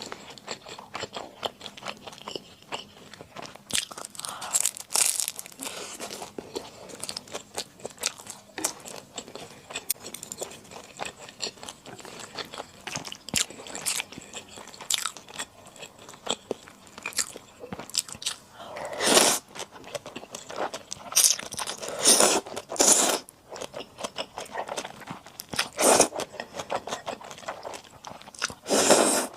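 Close-miked eating of rosé buldak with flat glass noodles: steady wet chewing and small mouth clicks. In the second half come a few longer, louder bursts of noisy eating.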